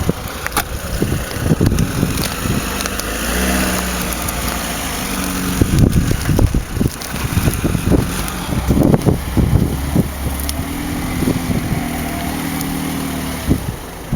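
Lada Niva engine running while driving off-road, with many irregular low thumps and knocks through the middle.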